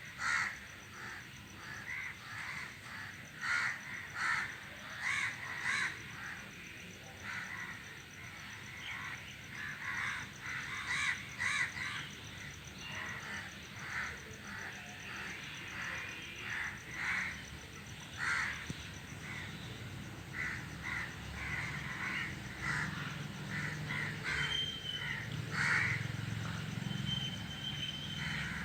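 A flock of crows cawing from a tree, many harsh calls overlapping and repeating throughout.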